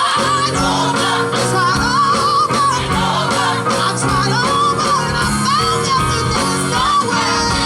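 Live gospel music: a lead singer with wide vibrato and runs over a band with bass and drums.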